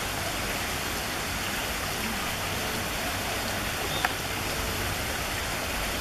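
Steady rush of running water, with one short sharp click about four seconds in.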